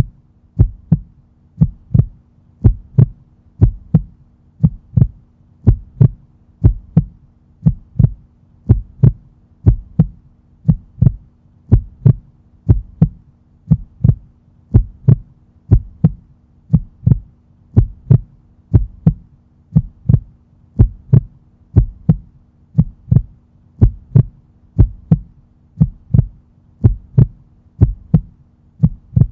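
Heartbeat sound effect: a steady, slow lub-dub double thump repeating about once a second.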